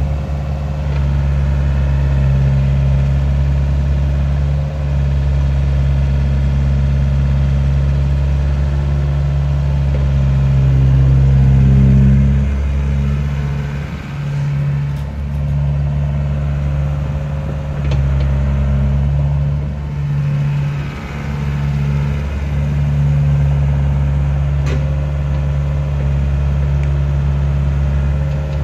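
Diesel engine of a 2010 Takeuchi TB175C midi excavator running steadily while the machine slews its upper structure and moves its boom, its note swelling louder around the middle and dipping briefly a few times.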